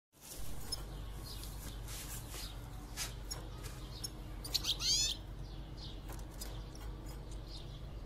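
European goldfinches chirping in a cage: scattered short high calls, with a loud, rapid twittering phrase a little past halfway. A steady low hum runs underneath.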